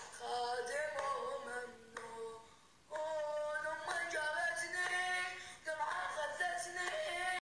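A solo voice singing a slow melody in long held notes, breaking off for about a second around two seconds in before carrying on.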